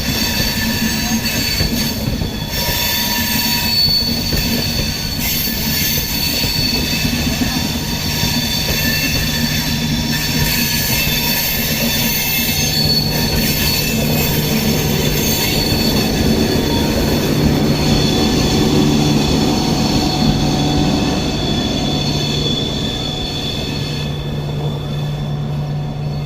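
Wheels of an Indian Railways Antyodaya Express passenger train squealing as it takes a curve: several steady high-pitched squeal tones over the rumble of the wheels on the rails, easing off slightly near the end.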